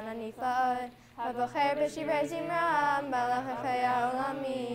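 Voices singing a Hebrew prayer melody in held notes, with a short break about a second in.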